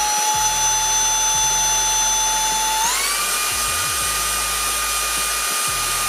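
AutoBot VX cordless handheld vacuum cleaner's brushless motor running in its 7000 Pa normal mode, a steady whine over an airflow hiss. About three seconds in, a press of the power button switches it to the 16000 Pa max mode, and the whine rises in pitch and holds higher.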